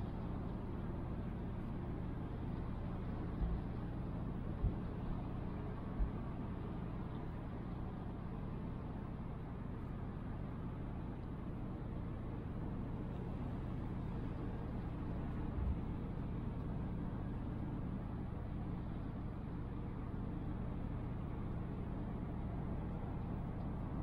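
Steady low engine drone with a constant hum, and a few brief low bumps in the first half.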